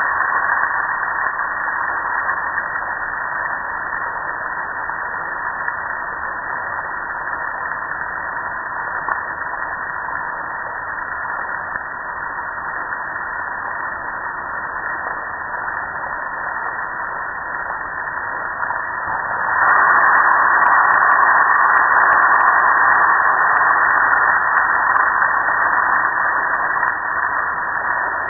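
A jet of water spraying onto a soap-covered gas grill: a steady hiss and splatter that gets louder about two-thirds of the way through.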